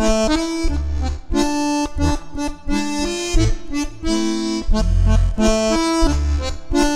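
Bayan, a Russian chromatic button accordion, playing a tune: sustained right-hand melody notes and chords, with deep left-hand bass notes coming in rhythmically about once a second.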